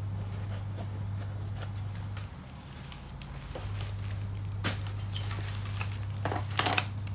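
A steady low hum that drops out for about a second a little past two seconds in, then comes back. A few short clicks sound near the end.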